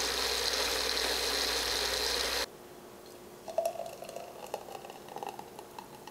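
Food processor motor running steadily while blending a thick cashew dressing, cutting off suddenly about two and a half seconds in. Then thick dressing pours from the processor bowl into a glass jar, with a few small clinks.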